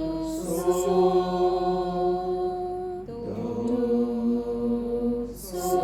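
A group of choir members singing solfa syllables together, each note held for a couple of seconds: "sol" early on, then a change of pitch to "do" about three seconds in. They are practising pitching the intervals of the scale by ear.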